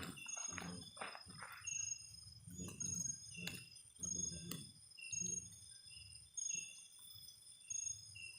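Insects chirping in short repeated calls, about one a second, over irregular low thumps and rustling.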